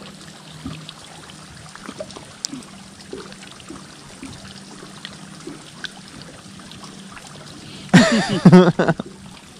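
Water trickling and lapping quietly against the boat, with small scattered clicks as a freshly caught bass is handled. About eight seconds in, a short, loud burst of a man's voice.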